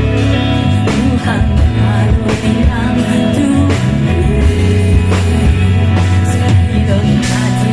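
Live band playing a pop-rock song, with steady drum hits under a sung vocal line.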